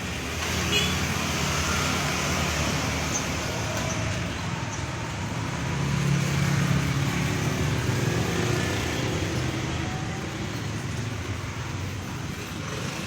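Steady road traffic noise with a low engine hum that swells and fades as vehicles pass, and a few faint short whistles about a second in.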